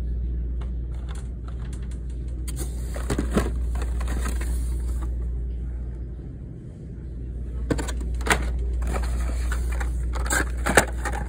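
Plastic blister-pack cards of Hot Wheels cars crackling and clicking as they are pulled out of a cardboard case, with cardboard scraping, in two bouts of handling, the second ending in a sharp click. A steady low rumble sits underneath.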